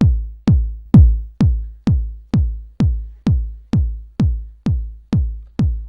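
Sampled electronic kick drum playing alone on every beat in a steady four-on-the-floor loop, about two kicks a second. Each hit is a sharp click that drops into a deep, decaying boom.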